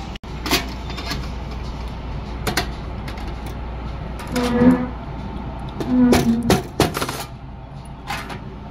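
Restaurant ambience at a charcoal barbecue grill: a steady hiss with scattered clicks and clatter, busiest about four and a half and six seconds in.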